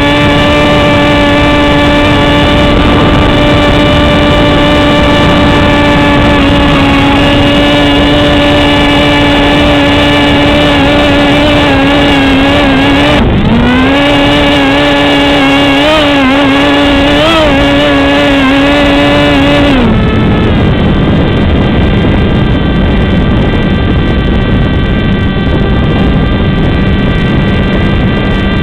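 Electric motor and pusher propeller of a Multiplex Easystar RC plane heard from on board: a steady, loud whine with a buzzy stack of overtones over wind rush. About thirteen seconds in the whine dips briefly and then wavers in pitch. About twenty seconds in it drops to a faint, lower hum as the motor is throttled back, leaving mostly wind noise.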